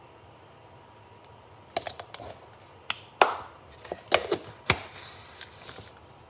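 A series of sharp plastic clicks and knocks, starting about two seconds in and loudest about a second later: a plastic scoop and the G Fuel tub's plastic lid handled and set down on a stone countertop as the lid is put back on, with softer rustling near the end.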